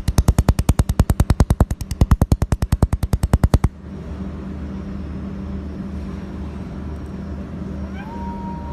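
Semiconductor laser welding machine firing a fast, even train of sharp snapping pulses, about nine a second, which stops about four seconds in. A steady machine hum is left behind, and near the end a tone rises and then holds steady.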